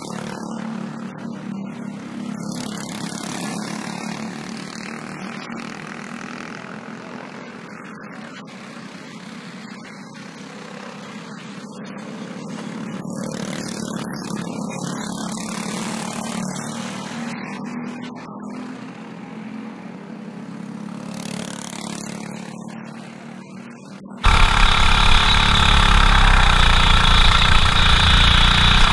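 Briggs & Stratton 206 four-stroke single-cylinder kart engines as a pack of racing karts runs past, the sound swelling and fading as they go by. About 24 seconds in it cuts suddenly to one engine heard from on board a kart, much louder.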